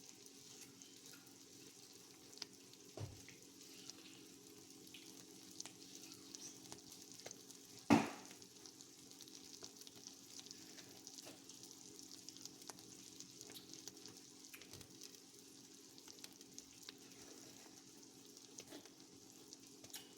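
Quesadilla frying in butter in a pan: a faint, steady sizzle with small crackles. A sharp knock about eight seconds in, and a lighter one near three seconds.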